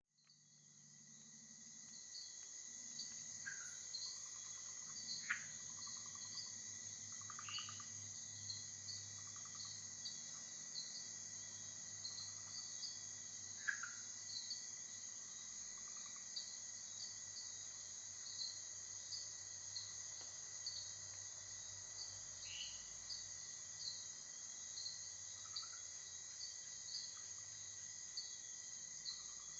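Night rainforest chorus, fading in over the first couple of seconds: a steady high insect trill with a regular repeating chirp runs throughout. Short, scattered 'chack' calls of male red-eyed tree frogs (Agalychnis callidryas) sound every few seconds over it.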